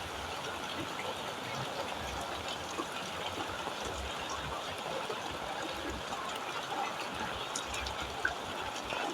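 Heavy rain falling steadily: an even hiss of water with many small drop ticks.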